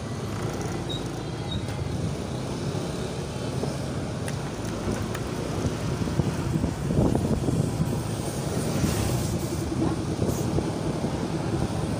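Motor scooters running at low speed along a narrow street: a steady engine hum with traffic noise, a little louder from about seven seconds in.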